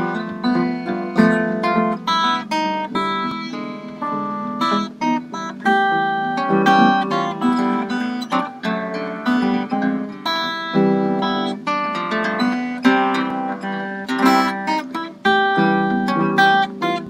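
Acoustic harp guitar being fingerpicked, a melody played over a steady line of bass notes.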